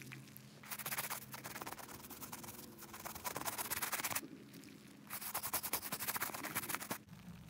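Brush scrubbing a sneaker in two bouts of quick back-and-forth strokes, the first about three and a half seconds long, the second about two.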